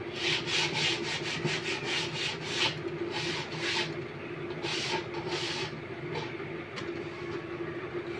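Hand scraping or filing along the edge of a melamine-faced particle board door: a quick run of short strokes, about four a second, then a few slower, longer strokes, with a single click near the end.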